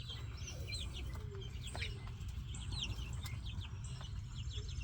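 A flock of three-week-old chicks peeping: many short, high chirps overlapping, some sliding down in pitch and some up, over a steady low rumble.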